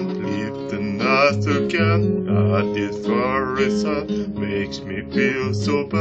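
A man singing a slow song with vibrato while playing a classical guitar with his fingers.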